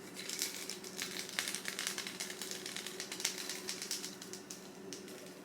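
Rapid, irregular light crackling and clicking from freshly popped popcorn in a microwave popcorn popper, over a faint steady hum.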